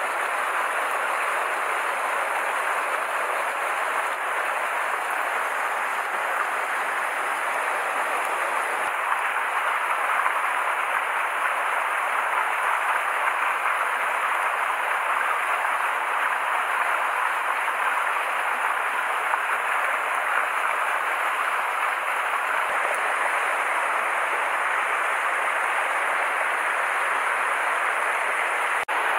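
Mountain stream running over boulders and riffles, a steady wash of water noise.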